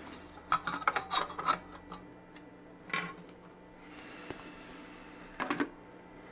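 Small plastic and metal parts of a popcorn popper's base clicking and knocking as they are handled and set in place. There is a quick cluster of clicks in the first two seconds, then single knocks about three and five and a half seconds in, with faint rubbing between them.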